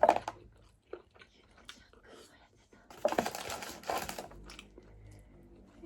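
Scattered sharp clicks and taps, with a short burst of rustling about three seconds in.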